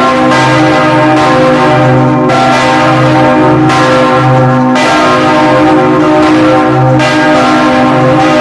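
Several church bells ringing together in a continuous peal, their strikes overlapping so the tones never die away, with a deep hum underneath that swells and fades.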